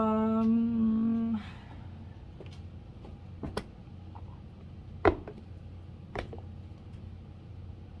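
A woman's voice hums one steady note for about a second and a half. A few faint knocks follow.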